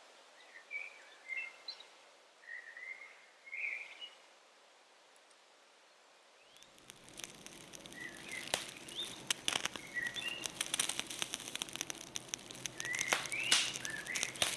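Small birds chirping in short calls. About six and a half seconds in, a steady rush of noise full of sharp clicks and crackles comes in and grows louder.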